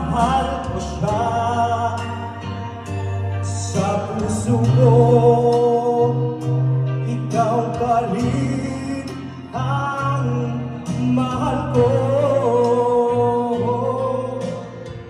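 A man singing into a microphone over amplified backing music, holding long notes, with a steady bass line under the voice.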